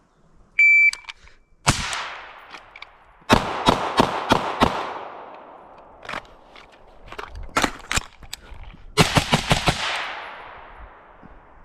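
Shot timer beeps once, then a timed string of rifle and pistol fire from a BCM 11.5 carbine and a Glock 19: a single shot, a rapid string of about six shots, a few scattered shots, and a final rapid string, each shot sharp with an echoing tail.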